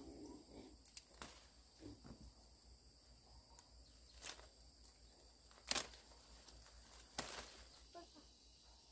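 Faint outdoor rustling with a few sharp snaps or taps, the loudest about halfway through and another a little later, over a steady high insect drone.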